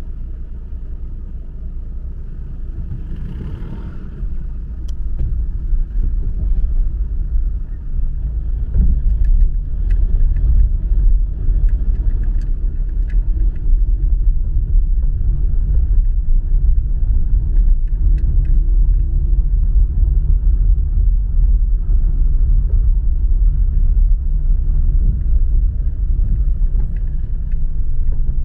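Low, steady rumble of a car driving, road and engine noise, growing louder a few seconds in, with a few faint ticks scattered through it.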